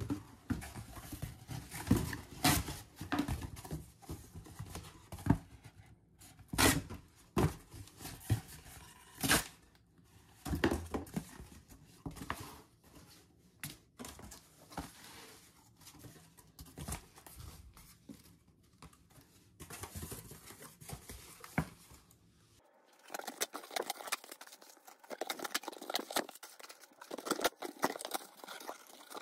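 Corrugated cardboard being torn apart by hand: irregular ripping with several sharp, loud tears, and rustling and scraping as the panels are bent and handled.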